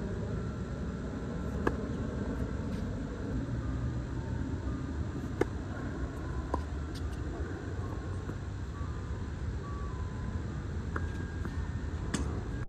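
A few sharp pops of a tennis ball being struck and bouncing during doubles play, the loudest near the end, over a steady low rumble of outdoor background noise.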